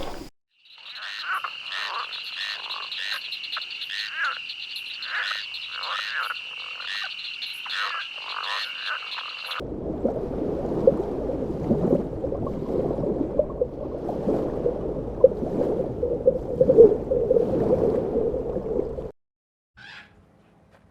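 Frogs croaking in two separate recordings. The first has calls repeating a little under twice a second over a steady high trill. About ten seconds in it cuts to a dense, lower-pitched chorus of croaking that stops suddenly near the end.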